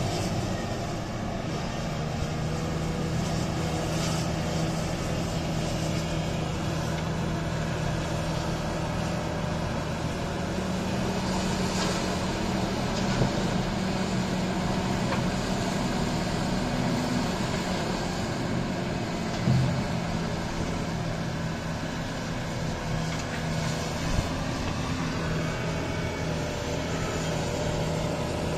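Large diesel engines of a Volvo EC950E excavator and an XCMG XDE150 mining dump truck running steadily while the excavator loads the truck, a constant low drone. A few sharp thuds come in the second half.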